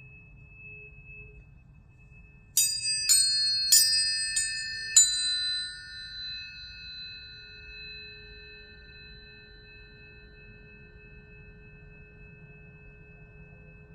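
Tuning forks ringing: steady pure tones held, then five quick metallic strikes about half a second apart, each setting off a bright high ring that fades away over several seconds.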